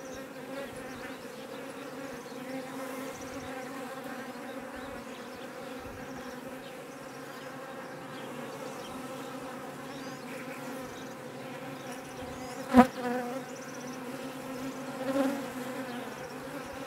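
Honeybees humming steadily over an opened hive, a low, even drone from the many bees on the frames. A single sharp knock sounds about thirteen seconds in.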